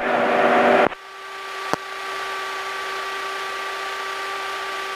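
Aircraft intercom audio: a radio voice broadcast cuts off about a second in, a single click follows, then a steady electrical whine over hiss.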